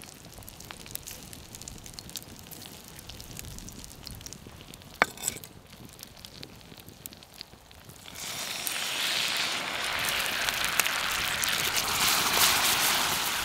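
Wood fire crackling faintly with scattered ticks and one sharp click near the middle, then a loud, steady sizzle starts a little past halfway as apple wedges fry in melted butter and caramelized demerara sugar in a steel frying pan over the fire.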